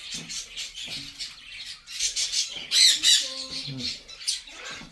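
Young macaw squawking in harsh, raspy calls, the two loudest close together about three seconds in.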